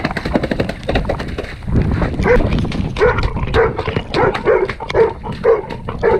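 A dog barking repeatedly, about two barks a second from roughly three seconds in, over water splashing in puddles.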